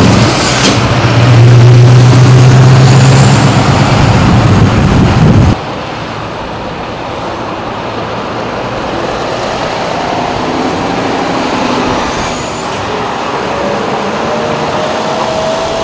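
Scania V8 truck engine running loud and close with a steady low drone, which cuts off abruptly about five and a half seconds in. After that, quieter roadway traffic noise with vehicles passing.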